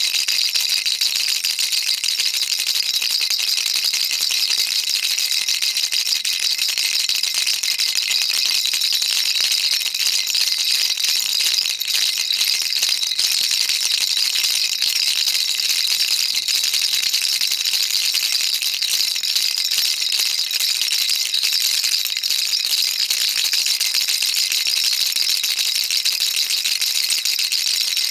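Baby rattle shaken continuously, a dense, steady stream of fine bright rattling with no pauses.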